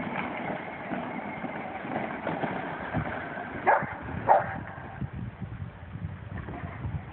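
A dog barks twice, about half a second apart, near the middle, over a steady low outdoor rumble.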